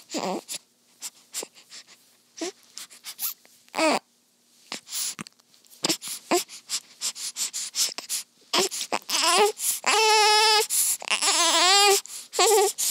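Newborn baby smacking and sucking at her hand in short wet clicks, then starting to fuss: a run of short cries about two-thirds in that builds into longer, loud wavering cries near the end.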